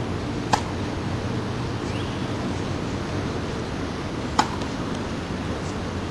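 Tennis racket striking a ball twice, about four seconds apart: two sharp pings over a steady low background rumble.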